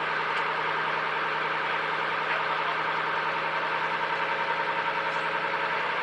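A motorboat's engine running steadily at an even pitch.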